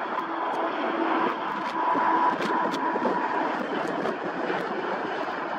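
Boeing KC-135 Stratotanker's four turbofan engines on landing approach: a steady jet rush with a faint high whine that swells about two seconds in.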